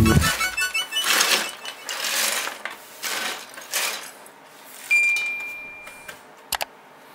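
Broken plastic toy pieces swept off a wooden board with a brush, clattering and scraping in swishes about once a second, then tailing off. About five seconds in there is a single high steady tone lasting about a second, followed by a short click.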